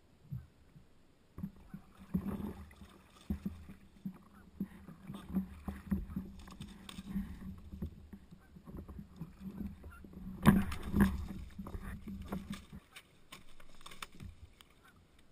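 Paddling sounds on a stand-up paddleboard: water sloshing and splashing around the board with many irregular knocks of the paddle and feet against the board, the loudest knock about ten and a half seconds in. Near the end, a Canada goose's wings flapping.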